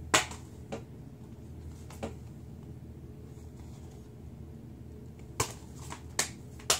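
Plastic Blu-ray case being handled: a sharp click just after the start, lighter clicks about a second and two seconds in, and a few more clicks near the end.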